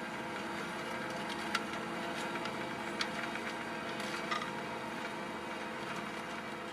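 Fendt 724 Vario tractor engine running steadily under ploughing load, with a few short clicks about one and a half, three and four seconds in.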